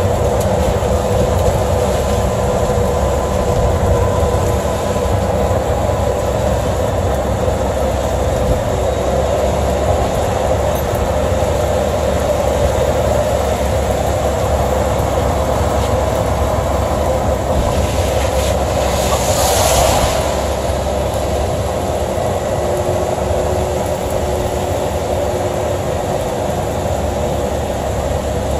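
Steady road noise inside a moving vehicle on a wet road in the rain: a constant low rumble of engine and tyres with a hiss over it. About two-thirds of the way through comes a brief louder hiss.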